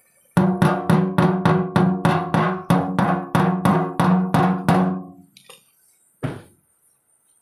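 A hammer beating rapidly on a hollow metal piece, most likely the diesel tank being worked on, about three ringing blows a second for about five seconds, then one last blow a second later.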